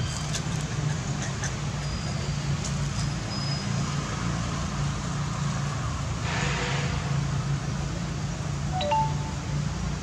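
Outdoor ambience: a steady low rumble, with a few faint, brief high chirps and a short hiss about six seconds in.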